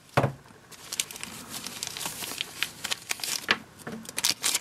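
Rustling and crinkling of a cloth drawstring sunglasses pouch as a pair of sunglasses is slid out of it, with a knock just after the start and many small clicks and taps.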